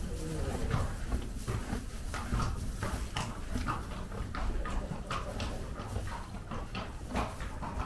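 A horse eating feed hurriedly, with quick, irregular crunching chews, several a second.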